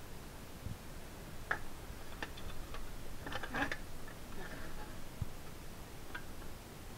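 Scattered metallic clicks and clacks from sheet metal being handled and worked with a Magnum hand-lever metal shear, with a denser cluster of clicks about halfway through.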